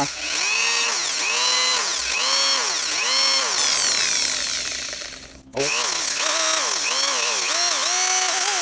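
Hand-held electric drill running in short pulses, its motor pitch rising and falling over and over, as its 9/64-inch bit cuts a groove into a PVC end cap. It stops for a moment a little past halfway, then starts again.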